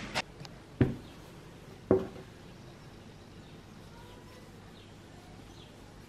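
Three sharp knocks in the first two seconds, from things being handled. Then a quiet room with a few faint bird chirps in the background.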